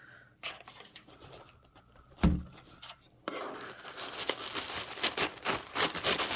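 A cardboard shipping box being opened and unpacked: scattered tearing and clicking, a single thump a little over two seconds in, then from about three seconds in a continuous rustling and crinkling of packing material that grows louder toward the end.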